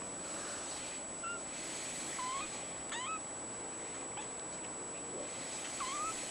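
Blue-point mitted Ragdoll kitten giving several short, high-pitched mews, about five, spaced a second or so apart.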